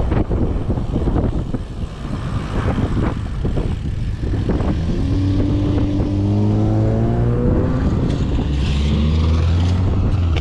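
Wind buffeting the microphone, then a car engine accelerating, its pitch climbing steadily from about halfway in, with a second climb in the last couple of seconds.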